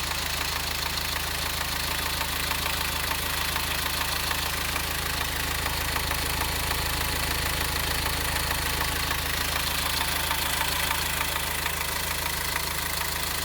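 Subaru Impreza's flat-four turbo-diesel engine idling steadily with a clattering noise.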